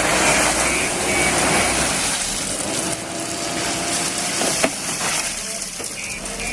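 Diesel engine of a JCB 3DX backhoe loader running steadily while it digs and loads mud. There are short repeated beeps in the first two seconds, and a single sharp knock about four and a half seconds in.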